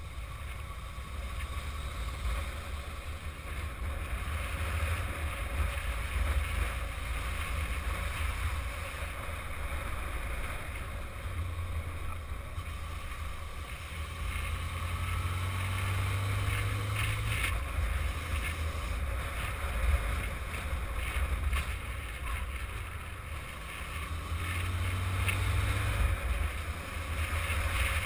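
Wind buffeting the microphone of a camera on a moving motorcycle, with the Yamaha XJ600 Diversion's air-cooled inline-four engine running underneath. The engine pitch shifts a little around the middle.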